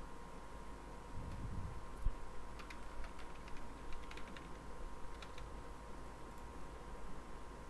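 Typing on a computer keyboard: a run of faint, quick key clicks from about two and a half to five and a half seconds in. There is a low thump about two seconds in, over a steady faint hum.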